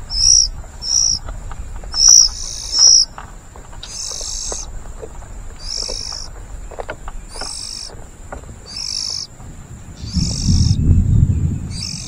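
Oriental magpie-robin nestlings begging as a parent feeds them at the nest: four short, shrill high calls in the first three seconds, then harsh, raspy calls about once a second. A low rumble joins near the end.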